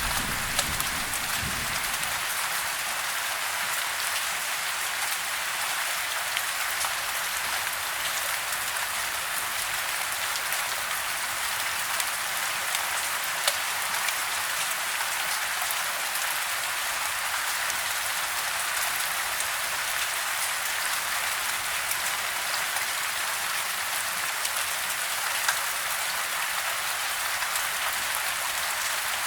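Steady rain falling: an even, dense patter with individual drops ticking through it. A low rumble dies away in the first couple of seconds.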